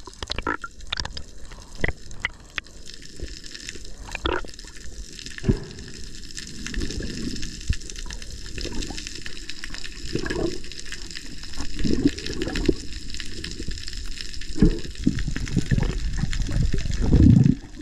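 Underwater water noise picked up by a diver's camera: low gurgling surges of water every couple of seconds, with scattered sharp clicks.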